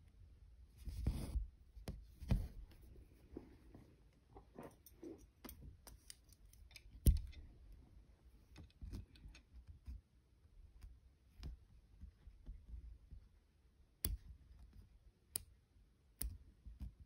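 Cross-stitching by hand: thread drawn through 25-count Zweigart fabric in soft rustling pulls, with small sharp clicks scattered through. The loudest click comes about seven seconds in.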